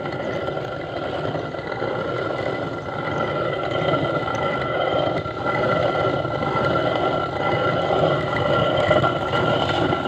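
Hand-turned stone quern grinding dried maize kernels into coarse grits: a continuous rough grating rumble of stone on stone and grain that swells and eases slightly as the upper stone is turned.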